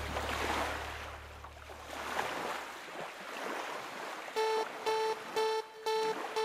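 Sea waves washing, with a low hum fading out over the first two seconds. About four and a half seconds in, electronic music starts: a pulsing synth note repeating about twice a second.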